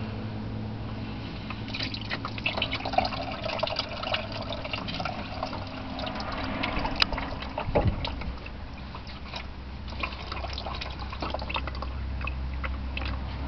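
Engine oil dripping and trickling from a spin-on oil filter as it is slowly unscrewed by hand, with many small clicks and taps.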